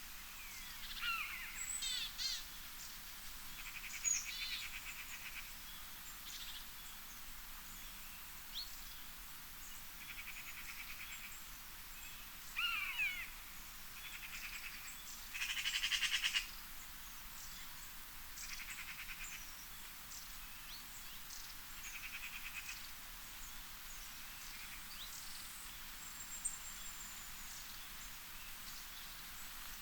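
Songbirds calling over a steady soft hiss of wind in trees: repeated short rattling trills, about a second each, alternate with quick whistled and sliding chirps, and the loudest trill comes about sixteen seconds in.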